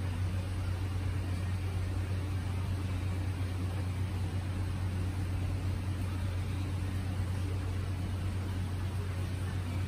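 A steady low hum over an even background hiss, with no distinct events.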